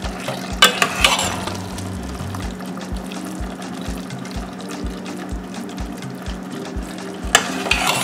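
Metal spoon scraping and knocking against a stainless steel pot while stirring thick soup, a few strokes about a second in and again near the end. Soft background music with a steady beat runs underneath.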